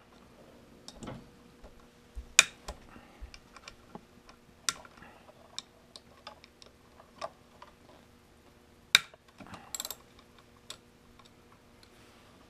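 Scattered light clicks and knocks of tools and parts being handled on a workbench, with two sharper knocks, one about two seconds in and one near nine seconds, over a faint steady electrical hum.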